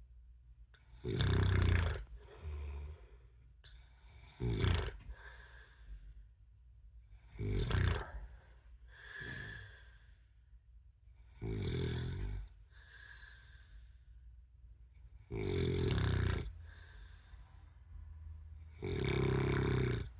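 A man snoring in sleep, in a regular rhythm: six loud snores, each about a second long, roughly every three and a half to four seconds, each followed by a softer breath.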